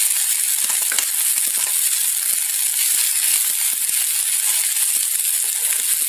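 Vegetables sizzling in hot oil in a kadhai with a steady hiss while being stirred and tossed with a spatula, which gives many short light scrapes and knocks against the pan.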